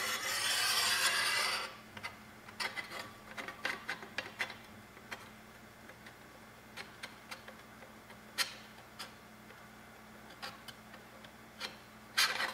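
Backing liner of double-sided tape being peeled off in a rasping pull for the first second and a half or so, then scattered light clicks and taps as the beauty plate is wiggled into a tight fit on the wing upright. Another rasping rub starts near the end.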